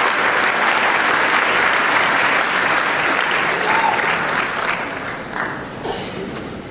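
Audience applauding, the applause dying away about five seconds in.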